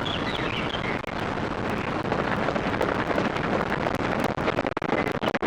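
Wind buffeting the microphone, a steady rushing noise, with a few short high chirps in the first second and some sharp clicks near the end.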